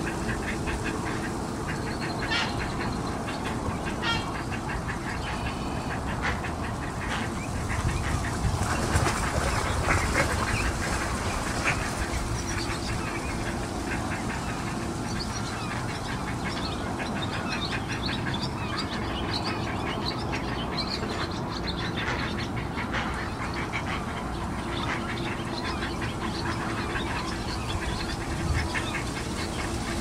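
Ducks quacking repeatedly on the water, with a steady low hum underneath.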